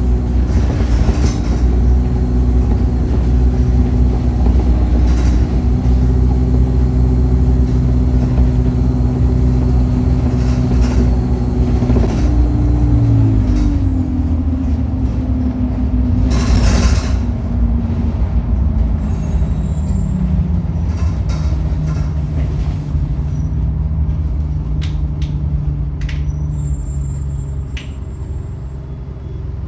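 Bus diesel engine with an Allison automatic gearbox running under load, with a thin high turbo whistle. About twelve seconds in the gearbox changes gear and the whistle fades away; a short hiss of air follows a few seconds later, and the engine pitch then falls slowly as the bus slows.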